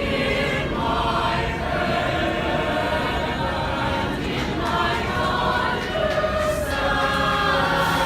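High school choir singing a cappella in many-voiced harmony, sustained chords changing every second or so, echoing in a subway station.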